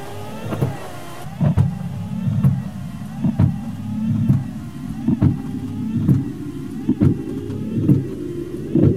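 Low car-interior drone under a wavering tone, with a sharp double knock repeating about once a second.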